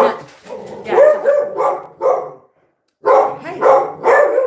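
Pet dogs barking repeatedly in quick runs of loud barks, stopping briefly a little over two seconds in before starting again. It is alert barking at a neighbour's dog being walked past outside.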